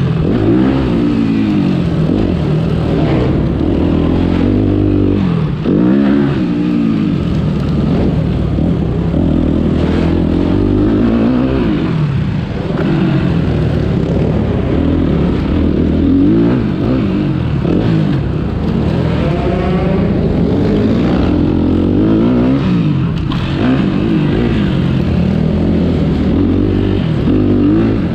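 Motocross bike engine revving hard and easing off again and again, its pitch climbing and dropping every couple of seconds as the rider works the throttle.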